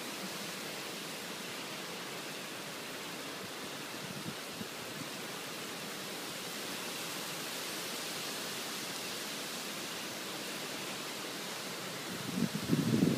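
Heavy rain pouring steadily during a thunderstorm. Near the end a strong gust of wind sets in and buffets the microphone with a louder, fluctuating rumble.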